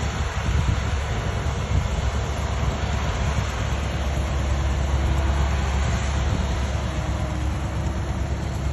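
A heavy vehicle running with a steady low rumble and noise.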